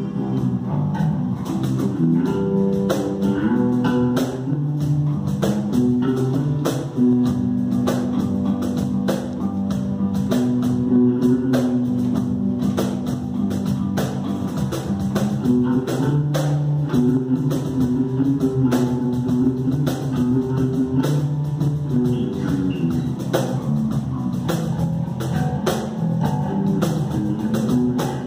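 Electric bass guitar playing a Carnatic melody in raga Vasantha, with held, stepping notes, over steady cajon strokes.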